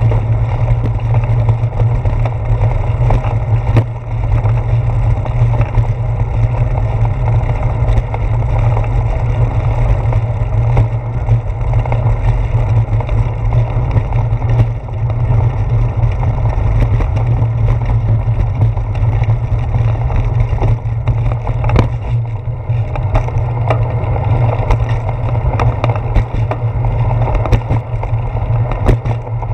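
Steady low rumble of a bicycle ride picked up through a handlebar-mounted GoPro Hero 4, the tyres running over wet brick pavers and concrete, with many small clicks and knocks from the bike and the mount.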